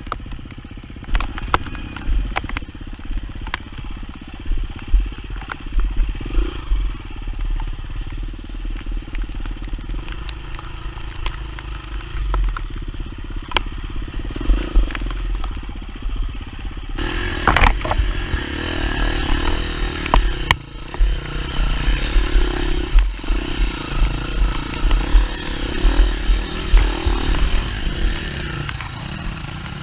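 Off-road dirt bike engine running on a rough, muddy trail, with scattered knocks and clatter from the bike over the ground. The engine gets fuller and busier about halfway through.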